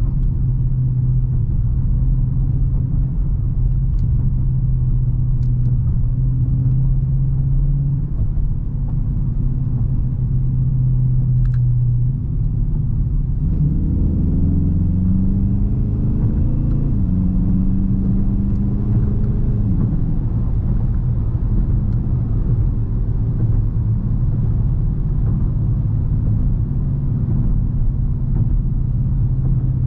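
Dodge Charger R/T's 5.7-litre HEMI V8 running at a steady cruise, a low drone with tyre and road noise. About halfway through the engine note rises for a few seconds as the car accelerates, holds a little higher, then settles back to the steady drone.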